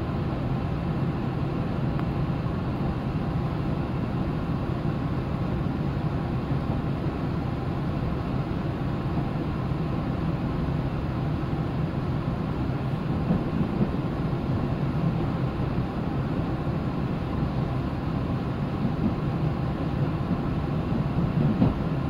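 Diesel railcar heard from inside the passenger cabin as it pulls out of the station: a steady low engine hum mixed with the rolling noise of wheels on rail.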